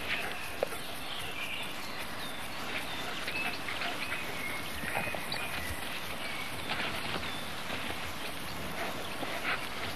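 Wolf cubs giving short, high whimpers and squeaks now and then, begging food from the adults, over a steady hiss.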